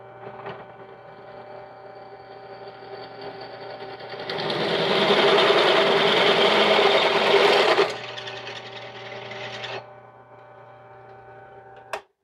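Drill press running, its twist bit cutting into a small metal part held with pliers: the cutting is loudest from about 4 to 8 seconds, over a steady motor hum. The motor stops near 10 seconds, and a single click comes near the end.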